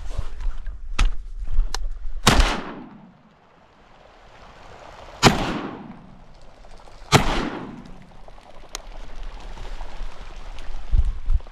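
Three shotgun shots, the second about three seconds after the first and the third two seconds later, each followed by a long fading echo. A few light knocks come before the first shot.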